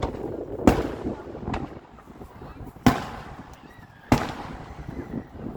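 Fireworks bursting overhead: three loud bangs, about a second, three seconds and four seconds in, and a smaller pop between the first two, each followed by a rolling echo.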